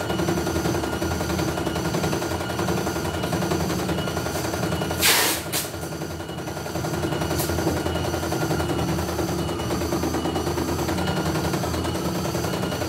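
CNY E900 computerized embroidery machine stitching, its needle going up and down in a fast, even rhythm. A brief loud rustle cuts across it about five seconds in.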